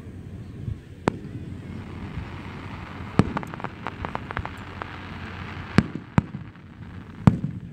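Aerial firework shells bursting: a sharp bang about a second in, a louder bang about three seconds in followed by a run of smaller crackles, then more bangs near the end.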